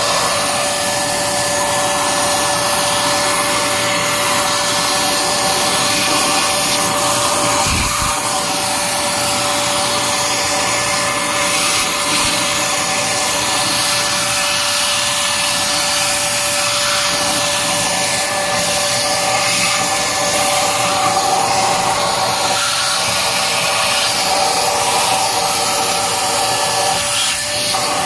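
Electric vacuum cleaner running steadily: a rush of air with a motor whine of a few steady tones. There is a brief low thump about eight seconds in.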